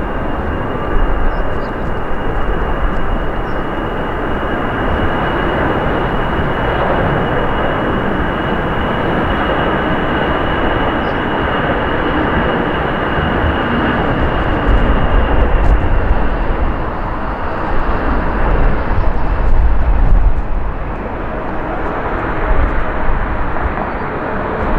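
Jet engines of an Airbus A321 airliner running at takeoff power, a continuous loud roar. A thin high whine fades out about halfway through, and a deep low rumble swells about two-thirds of the way in, then eases off.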